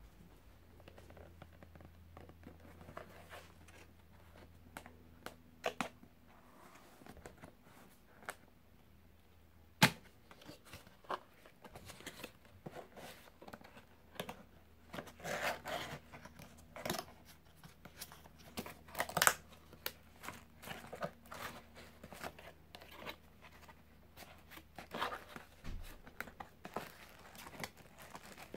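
Cardboard retail box being opened by hand: flaps and tabs rustling, scraping and tearing, with scattered clicks and a sharp snap about ten seconds in and another near nineteen seconds.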